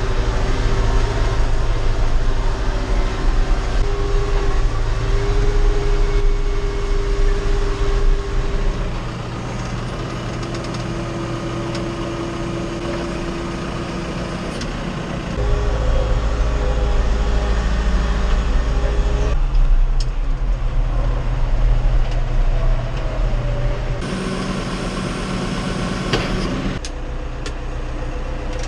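Tractor engine running steadily with its machinery, the sound shifting abruptly in level and pitch several times.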